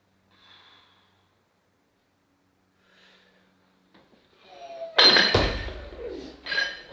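A weightlifter takes two short, sharp breaths, then cleans a 92 kg barbell loaded with bumper plates. About five seconds in there is a loud clatter of the bar and plates as it is caught in the squat, followed by a second clank near the end.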